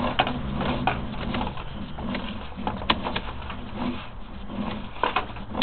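Sewer inspection camera's push rod being fed down the pipe: irregular clicks and knocks over a low rumble.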